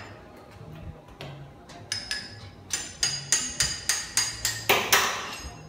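A run of about ten sharp metal-on-metal taps, roughly three a second, each ringing briefly like struck steel, the last one loudest, as the drilling setup is adjusted.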